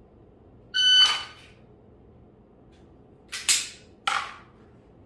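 A shot timer's start beep, one short electronic tone, about a second in. About two and a half seconds later come three short, loud scuffing noises from the pistol and holster being handled during a dry-fire draw.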